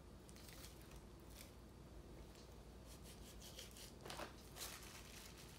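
Faint sounds of a kitchen knife cutting into a whole raw chicken on a plastic cutting board: a few soft cutting and scraping strokes, the clearest two about four seconds in.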